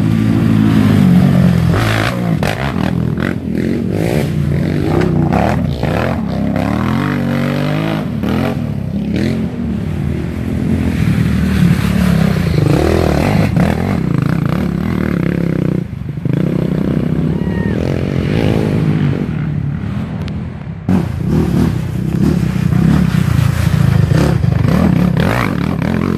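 Racing ATV (quad) engines revving hard, rising and falling in pitch, as the quads ride through a muddy creek-bed section of the course.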